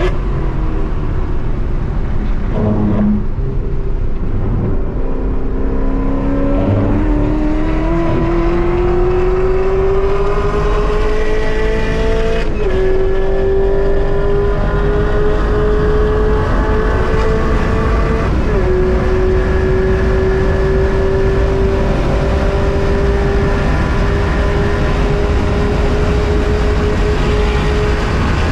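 Supercharged 6.2-litre LT4 V8 of a Chevrolet Camaro ZL1 1LE, heard from inside the cabin at full throttle: after a few uneven seconds the engine note climbs steadily in pitch, drops sharply with a manual upshift about twelve seconds in, climbs again, drops with another upshift about six seconds later, then holds high at around 160 mph with steady road and wind noise underneath.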